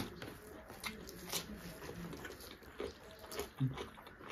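Wet chewing and lip-smacking, with soft squelches of fingers mixing rice and curry, as a string of small irregular clicks and smacks.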